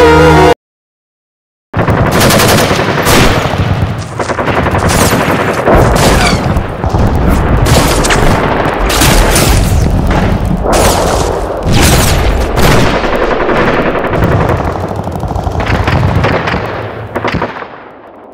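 Organ music breaks off, and after a second of silence a battle sound effect starts: rapid machine-gun fire mixed with louder single gunshots. It fades out near the end.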